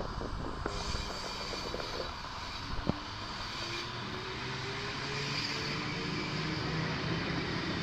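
Double-deck electric suburban train running along the platform toward and past the listener: a steady running sound with a motor whine that rises in pitch from about four seconds in, growing slowly louder. Two single sharp clicks come in the first three seconds.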